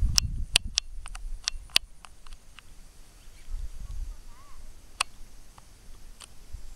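Baitcasting reel clicking in sharp, irregular ticks while a hooked fish pulls on the bent rod: about eight ticks in the first two and a half seconds, then two more later, over a low rumble.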